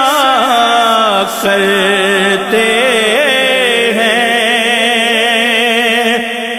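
Background music: a solo voice chanting or singing in long, wavering held notes, without a beat.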